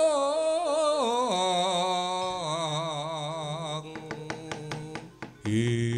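Wayang kulit suluk sung over gamelan: a long held, wavering vocal note that slides down about a second in and fades, then a lower voice taking up the song near the end. Sharp knocks sound throughout.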